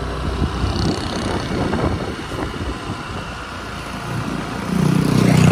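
Motorbike running along a road, its engine hum mixed with wind noise on the microphone, growing louder near the end.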